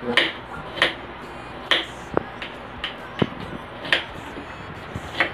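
Kitchen knife slicing onion on a plate: a string of sharp clicks as the blade cuts through and strikes the plate, irregularly spaced about half a second to a second apart.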